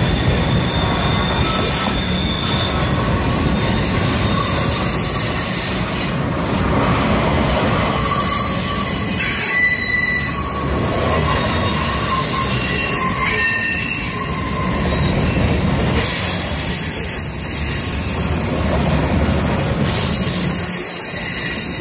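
CSX freight train's boxcars rolling past with a steady heavy rumble of wheels on rail, and high-pitched wheel squeal coming and going.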